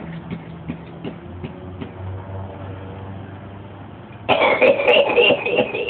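A longtime smoker's cough: a few fading coughs at the start, then, about four seconds in, a sudden loud coughing fit with a high, strained pitched tone. The man puts the cough down to 55 years of smoking.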